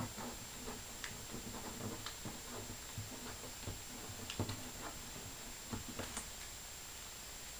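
Hands folding small pieces of paper on a plastic tabletop: scattered soft clicks, taps and paper rustles, the sharpest tap right at the start and another about four and a half seconds in.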